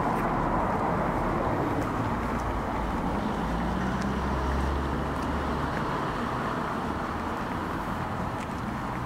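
Steady outdoor ambience: an even rush of noise, with a low rumble that swells about three seconds in and dies away about three seconds later.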